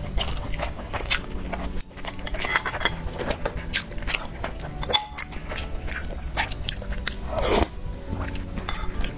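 Close-miked eating sounds: chewing and smacking on a mouthful of glutinous-rice braised pork, with many small mouth clicks, then a slurp from a spoon of syrupy soup near the end. Background music plays underneath.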